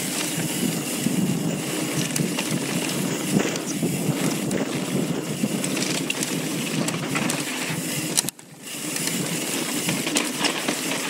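Mountain bike riding over a dirt trail: steady rush of wind and tyre noise with many scattered clicks and rattles from the bike. The noise drops out abruptly for about half a second a little past two-thirds through, then returns.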